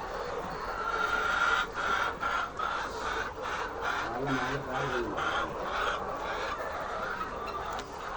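Chickens clucking: a quick run of repeated calls, about two to three a second, from about one and a half seconds in until about six seconds.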